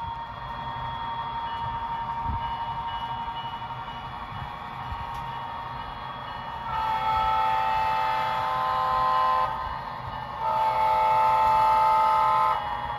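Sound decoder of an HO scale Bachmann GP35 model diesel locomotive (TCS WOW sound) playing a diesel engine running under load, through the model's small onboard speaker. A horn chord sounds in two long blasts, about seven and ten and a half seconds in, the second louder.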